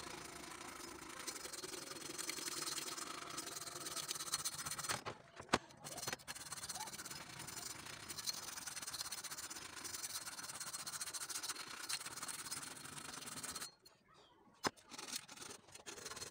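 Steady rubbing on the steel blade of a bill hook, breaking off briefly about five seconds in and again near the end, with a few light clicks in the pauses.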